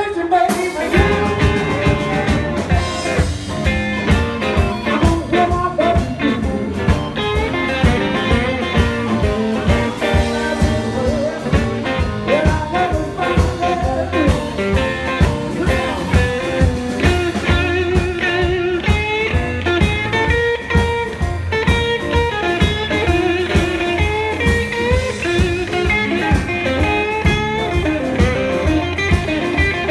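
A band playing blues-rock, with guitar lines over a steady beat.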